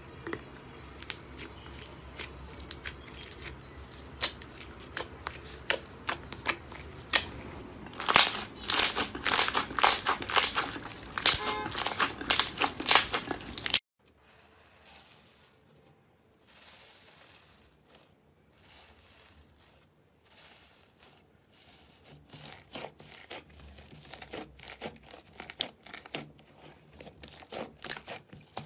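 Slime being squeezed and pressed by hand, giving dense crackling and popping clicks that grow loud for a few seconds. About halfway through, a different slime takes over with sparser, quieter crackles in short spurts, which become busier towards the end.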